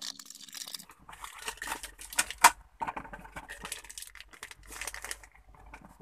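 Clear plastic packaging crinkling and rustling as a shift knob is pulled out of its sleeve, with one sharper, louder crackle about halfway through.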